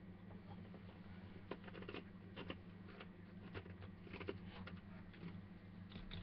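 Faint room tone with a steady low electrical hum and scattered light clicks and taps.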